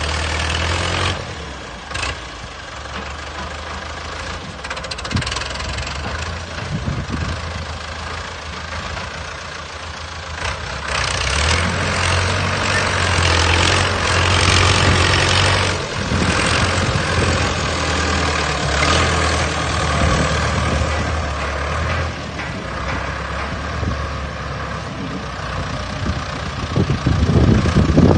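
Heavy machine's diesel engine running steadily under work, getting louder and harder for several seconds about midway, then easing back.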